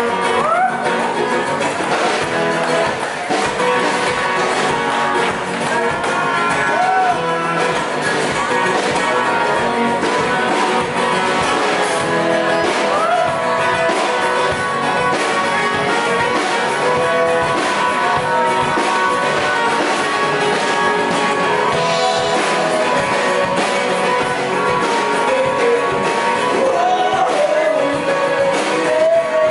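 Rock band playing live: a singer's voice over guitar and drums, loud and steady.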